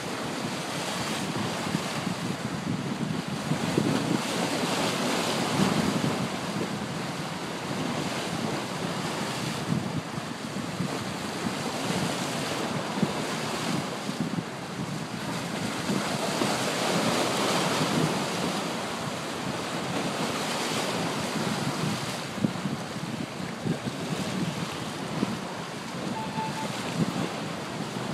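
Choppy waves washing and splashing against shoreline rocks, swelling louder every few seconds, with wind buffeting the microphone.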